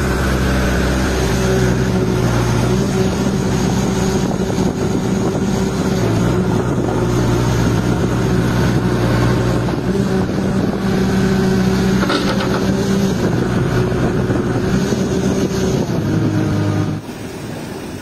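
Heavy vehicle's diesel engine running steadily close by, its revs shifting up and down slightly a few times; it cuts off about a second before the end, leaving quieter wind noise.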